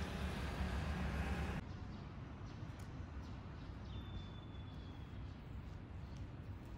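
Outdoor city background noise: a steady rush that drops abruptly about a second and a half in, leaving a quieter hum with a faint thin high whistle near the middle and a few light clicks.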